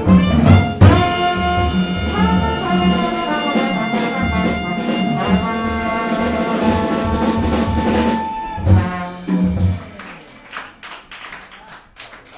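Small jazz combo with grand piano, upright bass and drums playing the closing bars of a tune: long held notes over a walking bass, then a few final accented hits. Scattered clapping starts about ten seconds in as the music ends.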